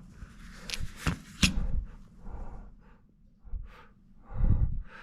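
Sharp small clicks and taps of hands working on the opened hard drive to take out a screw, three clicks in the first second and a half, with a few dull low thumps of handling, the loudest near the end.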